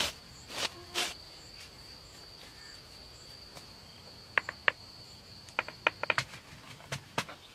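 An insect's steady high buzz that stops about six seconds in, with several sharp clicks of rounded river stones knocked together as they are set onto a stone pillar, in two clusters around four and six seconds in.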